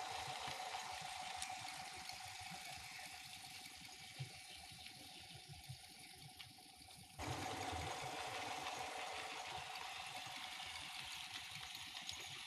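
Small electric motor of a battery-operated walking plush toy dog whirring steadily as it walks, over a faint hiss; the sound jumps back louder about seven seconds in.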